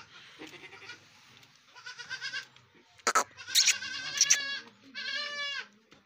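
Goats bleating, a few short wavering calls in the second half, with a sharp knock just before the first.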